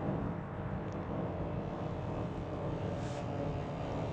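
Twin electric-motor rotors of a 3D-printed V-22 Osprey model tiltrotor running steadily in flight, a constant propeller hum with faint motor tones, during the transition from hover toward forward flight.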